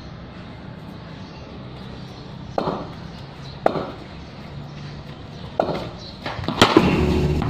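Four sharp knocks spread out a second or two apart during a casual cricket game played on a stone-paved lane, the last one amid people's raised voices near the end.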